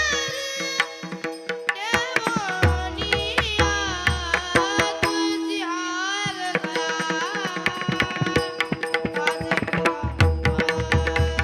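Varkari bhajan music: a solo voice sings winding, ornamented phrases over steady held notes, with hand-drum strokes and sharp percussion clicks. The deep drum strokes grow heavy near the end.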